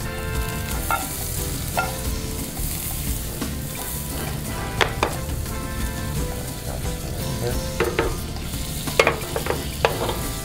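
Garlic and butter sizzling in a stainless steel sauté pan, stirred with tongs, with a few sharp metal clinks in the second half.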